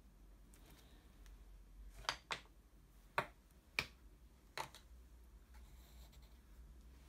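A paintbrush tapping and clinking against small glass jars of ink, five sharp clicks spread over a few seconds, over a faint low hum.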